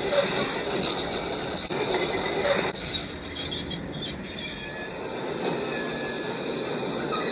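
Train brakes squealing, steel wheels grinding on the rails with high, drawn-out squeals as the train tries to slow down. About five seconds in the sound shifts to a different, quieter squeal.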